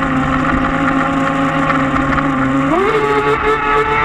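Electric motor of a Thunder Tiger Ridge Outlaw 7.4 RC boat on a 6S LiPo, heard from on board, whining at a steady pitch, then rising sharply about three-quarters of the way in as the boat speeds up, with water rushing along the hull underneath.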